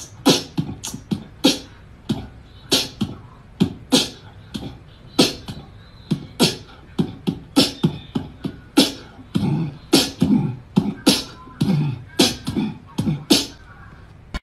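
A quick, irregular series of sharp clicks and thumps, about two to three a second, some with a low thud under them.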